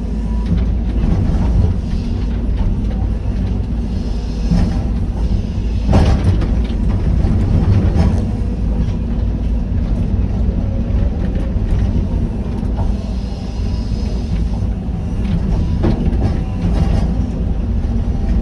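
Excavator's diesel engine running steadily, with a couple of short knocks about six and eight seconds in.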